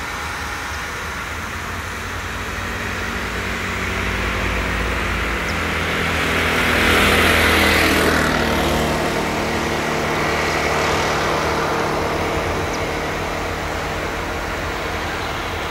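Diesel tractor engines running at a maize silage clamp. One grows louder to a peak about halfway through, its pitch dropping as it passes, then eases back.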